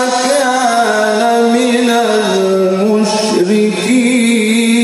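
A man reciting the Quran in melodic tajwid style (qirat), holding long drawn-out notes that glide slowly from pitch to pitch.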